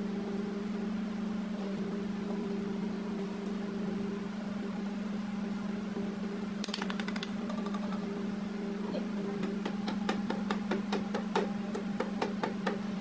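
A piston being tapped down through a ring compressor into a cylinder bore of a Daewoo six-cylinder diesel block with a hammer's wooden handle: a quick cluster of taps about seven seconds in, then repeated light taps over the last four seconds. A steady low hum runs underneath.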